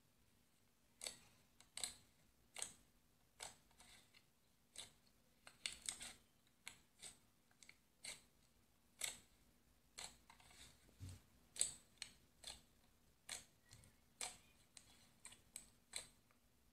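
Fluffy slime squeezed and stretched by hand, giving irregular sharp pops and clicks, about one or two a second, as air pockets in it burst.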